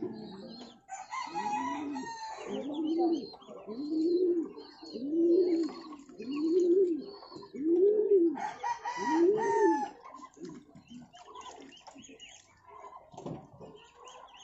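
Birds calling: a regular run of about seven low calls, each rising then falling in pitch, a little over a second apart, with two higher, stretched calls around them, one near the start and one near the end of the run.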